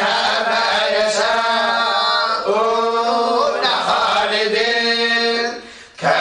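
Collective Quran recitation in the Moroccan style: several voices chanting in unison, holding long notes that glide slowly in pitch, with a brief pause for breath near the end.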